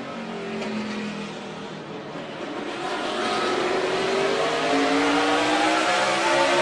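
NASCAR Cup car's V8 engine heard from an onboard camera: at lower revs for the first couple of seconds, then rising steadily in pitch and getting louder as the car accelerates out of the corner onto the straight.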